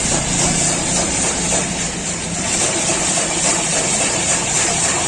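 Motorized ice-shaving machine running steadily, a spinning block of ice grinding against the blade into shaved ice, with a constant hissing grind over a low motor hum.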